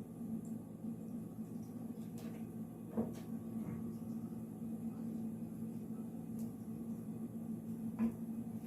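Steady low hum with two light knocks, about three seconds in and near the end, typical of a spoon tapping a saucepan while cheese sauce is stirred over low heat.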